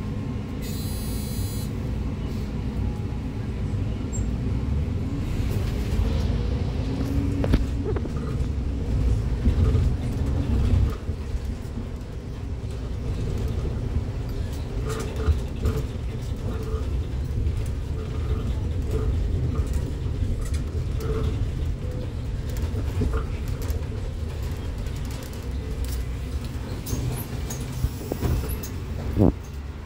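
City bus in motion heard from inside the passenger cabin: a steady low engine and road rumble, with a short high buzz about a second in, faint voices now and then, and a sharp click near the end.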